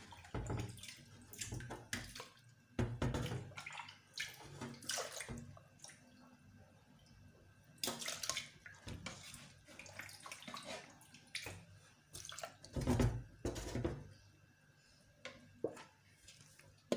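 Boiled pineapple chunks and their cooking liquid being scooped from a pot and tipped into a glass blender jar: irregular wet splashes and sloshes, with a few sharp knocks.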